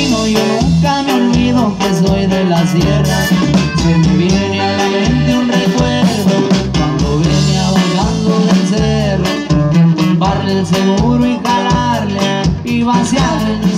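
Live band playing through PA speakers: electric bass, guitar and drum kit under a melody line.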